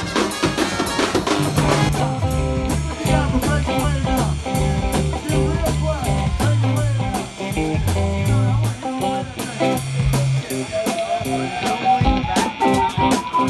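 Music: a brass band with sousaphones and trumpets plays for the first couple of seconds. It gives way to a band with drum kit, a steady low bass line and regular cymbal ticks. A single tone glides slowly upward in the last few seconds.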